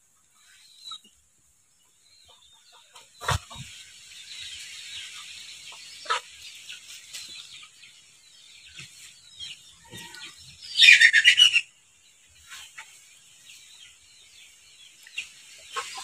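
Chickens clucking, with one loud squawk about eleven seconds in and a sharp knock about three seconds in.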